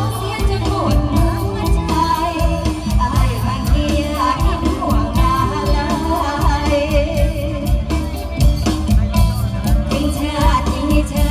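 Live Isan mor lam band music: a singer's ornamented, wavering vocal line over a full amplified band with a steady, heavy drum beat.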